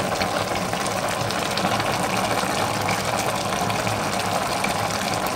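A pot of cabbage, potatoes and pork simmering on the hob, bubbling with a steady low hum underneath.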